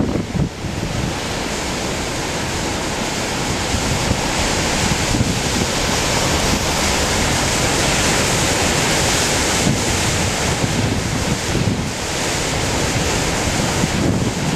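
Heavy ocean swell raised by a typhoon, surf breaking and washing in a continuous roar that builds slowly to a peak mid-way and then eases. Wind buffets the microphone with low gusts, most at the start and end.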